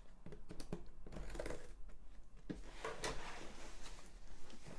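A cardboard box and its packaging being handled and opened: scattered light clicks and taps, with a stretch of rustling about halfway through.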